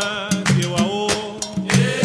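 Candomblé song for Exu: a voice singing in Yoruba over drums and percussion in a steady rhythm.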